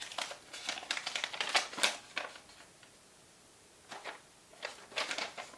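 Crinkling and rustling of plastic bags and paper packaging being handled, in quick clusters of crackles for the first two seconds and again about four seconds in.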